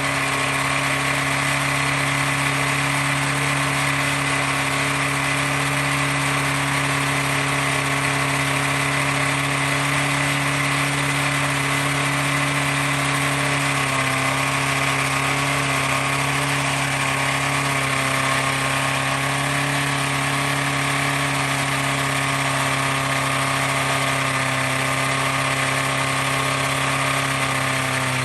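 First-generation Toyota engine idling steadily, with the knock of a worn connecting-rod bearing (rod knock). Its pitch shifts slightly about halfway through.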